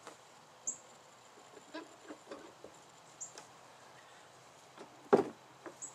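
Hand-operated hydraulic pump being worked to prime a pressure-test rig: faint clicks, a short high squeak about every two and a half seconds, and one louder knock about five seconds in.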